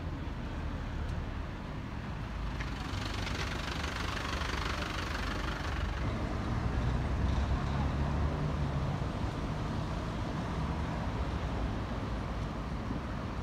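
Street traffic: motor vehicle engines running with a steady low rumble. A louder rushing noise of a passing vehicle comes between about three and six seconds in.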